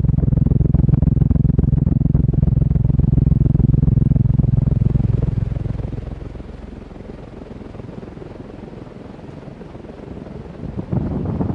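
Fasco World's Fair six-blade ceiling fan running, a loud low rumbling hum that starts suddenly, eases after about six seconds and rises again near the end.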